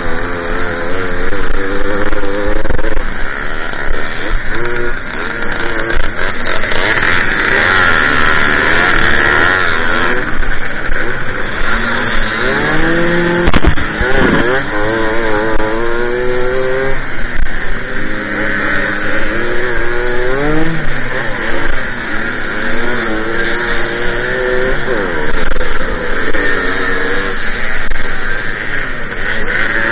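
Small Jawa two-stroke moped engine ridden at full throttle, its pitch climbing and dropping back again and again as it revs out through the gears. A few sharp knocks sound about halfway through.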